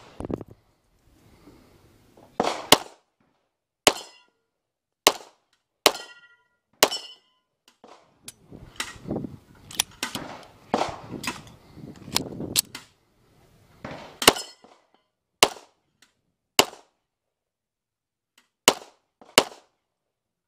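A string of semi-automatic pistol shots fired at irregular spacing, about twenty in all, some in quick pairs. Several shots are followed by the brief ring of hit steel targets.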